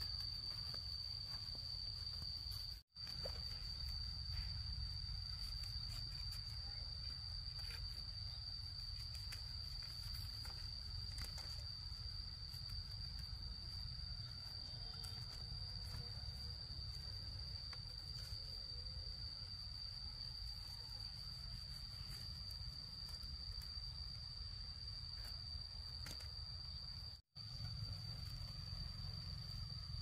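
An insect's steady, high-pitched trill held on one unchanging tone, over a low rumble. The sound cuts out completely for an instant twice, about three seconds in and near the end.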